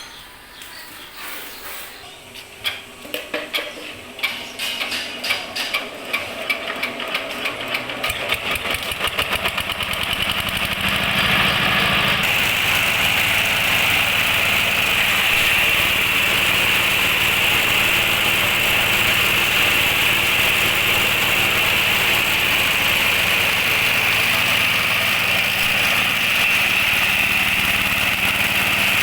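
Single-cylinder diesel engine of a compost shredder starting: its firing knocks come faster and faster over several seconds until it settles into steady running.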